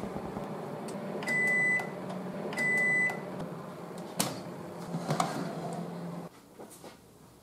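Countertop oven running with a steady hum, then beeping twice to signal that baking is done. About four seconds in the door latch clicks open, a metal baking tray clatters as it is slid out, and the oven's hum cuts off near the end.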